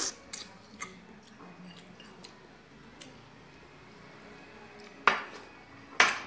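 A ceramic plate clinking while food is eaten from it by hand: faint scattered clicks, then two sharp knocks about a second apart near the end.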